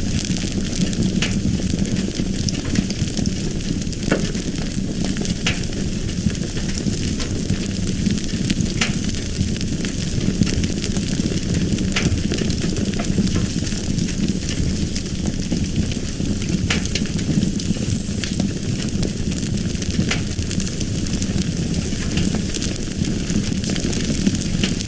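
A fire burning: a steady low rumble and hiss, with sharp pops and crackles breaking out irregularly every few seconds.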